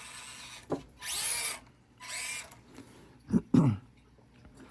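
Axial SCX24 micro crawler's small electric motor and gear train whirring in two short bursts of throttle, each about half a second long, a second apart.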